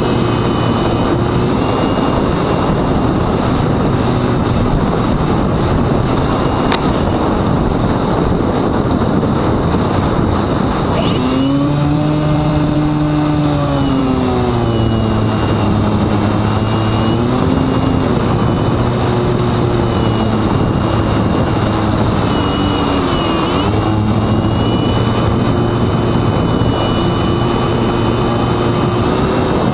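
Sunnysky X2220 brushless motor driving a 9x7.5 propeller on a Mini Talon flying wing in flight, heard through the onboard camera over a heavy rush of wind. Its pitch holds steady, shifts up and down with throttle about 11 seconds in, and dips briefly near 23 seconds.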